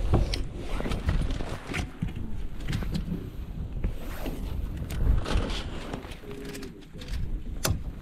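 Wind buffeting the microphone, strongest at the start, with scattered clicks and knocks from a rod, spinning reel and boat being handled; one sharp click near the end.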